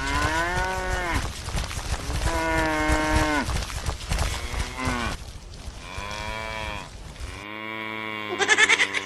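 Cattle mooing: about five long, drawn-out moos one after another. A short burst of rapid buzzing pulses comes in near the end and is the loudest moment.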